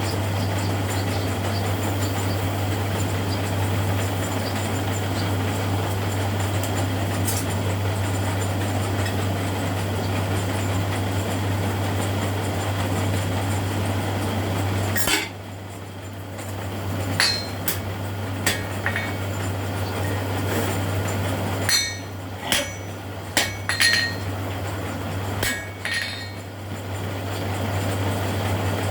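A steady machine hum runs for about fifteen seconds and then stops. After it come several irregular, ringing metal strikes, hammer blows on steel in a blacksmith's forge.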